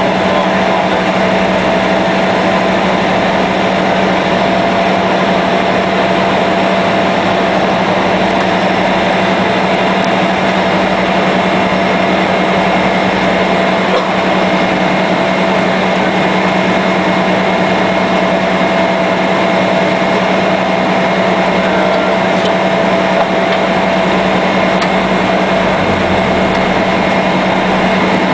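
Cessna 208B Grand Caravan's Pratt & Whitney Canada PT6A turboprop running at taxi power, heard from inside the cabin: a steady propeller drone with a high turbine whine over it.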